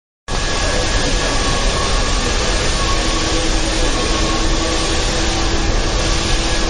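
Subway train standing at an underground platform: a steady hum and rushing noise with faint held tones, a low tone joining about three seconds in. It starts abruptly after a split-second silence.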